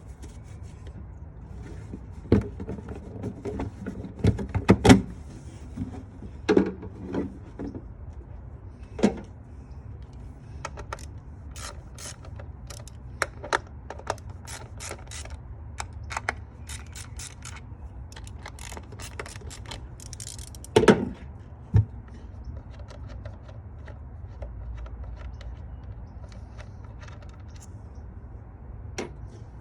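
Scattered clicks, taps and knocks of hand tools and parts being handled during mechanical work, with a cluster of louder knocks a couple of seconds in and another about two-thirds of the way through, over a low steady hum.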